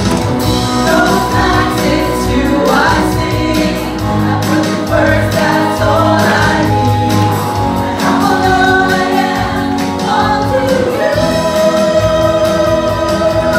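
Live amplified worship music: a band with guitars and keyboard accompanying a woman singing lead, with other singers joining in. Near the end the singing settles onto one long held note.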